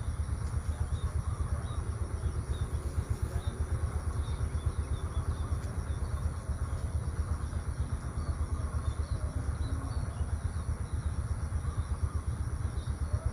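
Wind buffeting the microphone: a steady low rumble that flutters rapidly, with faint short high chirps repeating over it and a thin steady high hiss.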